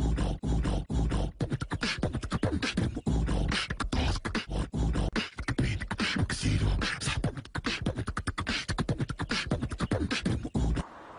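A person beatboxing: a fast, unbroken run of mouth-made kicks, snares and clicks with short voiced sounds, cutting off suddenly near the end.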